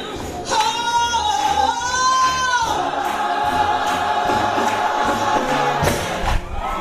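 Gospel choir singing with instrumental accompaniment, a lead voice holding long, wavering notes over sustained choir chords.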